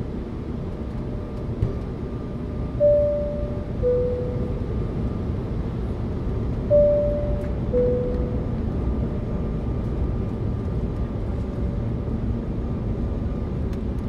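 Airliner cabin seatbelt-sign chime: a two-note, high-then-low ding-dong sounding twice, about four seconds apart. It is the signal of the fasten-seatbelt sign coming on, heard over the steady low rumble of the aircraft cabin.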